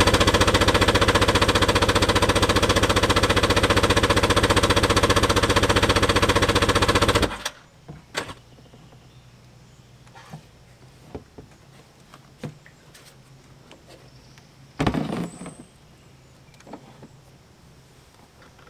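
Electric starter cranking the WaveRunner's Yamaha 650 two-stroke twin, a fast, even pulsing that does not catch: fuel is still being drawn up through the lines. The cranking stops suddenly about seven seconds in. A few clicks and one short, loud burst of noise follow about fifteen seconds in.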